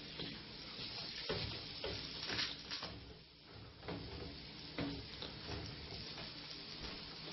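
Faint sizzling of food frying on a stovetop, with a few short knocks and scrapes of a spoon and hands at the pans.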